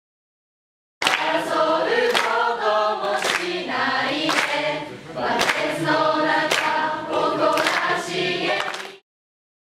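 End-screen music with sung voices like a choir and a strong beat about once a second. It starts about a second in, after a moment of silence, and stops shortly before the end.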